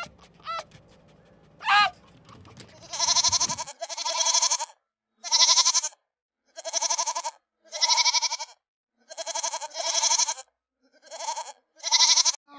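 A goat bleating again and again, about nine separate quavering bleats each roughly half a second long, starting about three seconds in. A couple of short high cries come before them.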